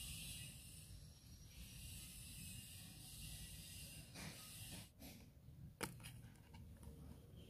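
Faint handling noises of a coin being measured with a plastic digital caliper and then fitted into a cardboard coin holder: a soft scraping hiss for the first four seconds or so, then a few small clicks, the sharpest about six seconds in.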